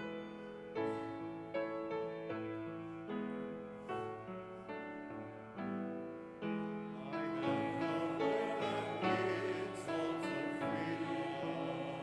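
Piano playing church music, its chords changing about once a second. About seven seconds in, singing voices join the piano.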